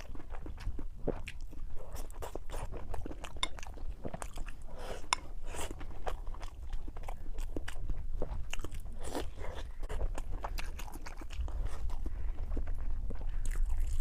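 A person chewing fried pork: a continuous run of irregular, short, crunchy bites and chews with no pause.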